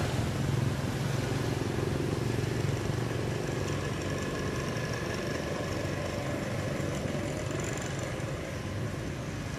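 A steady low engine rumble.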